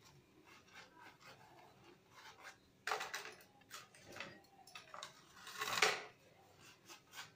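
Pastry brush rubbing oil over a crisp roasted papad in soft repeated strokes, with the brittle papad scraping against a plate. There are louder scrapes about three seconds in and again near six seconds.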